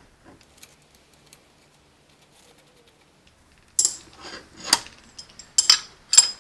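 Metal rods of a crankshaft installer tool clinking as they are picked up off the workbench and set against the engine case. A few faint ticks at first, then several sharp metal clinks from about four seconds in.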